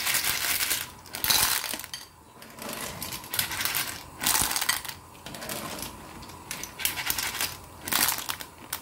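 Clam shells clattering and clinking in a metal mesh strainer as they are scooped from hot water and tipped into a bowl, in irregular bursts.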